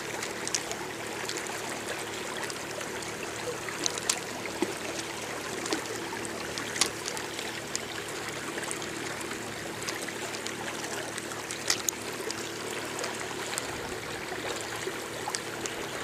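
Small waves lapping against the side of a boat: a steady watery wash, with a few faint clicks and knocks.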